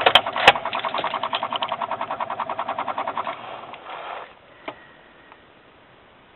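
A Honda Ridgeline's starter solenoid chattering: a rapid, even clicking of about ten clicks a second for about three seconds while the engine fails to crank. The clicking then stops, and a single click comes a second or so later. It is the typical no-crank clatter of a battery without enough charge.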